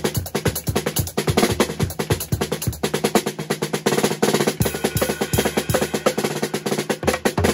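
TAMA Cocktail-JAM compact acoustic drum kit played with sticks: a continuous stream of fast strokes on the drums, rolling in quick runs.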